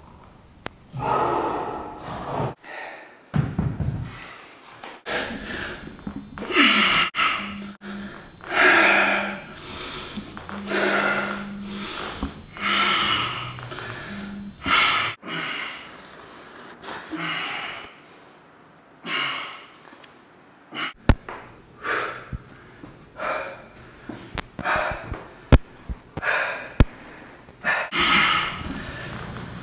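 A man breathing hard through a dumbbell workout, with a loud, forceful breath on each repetition, one every second or two. Several sharp clicks come near the end.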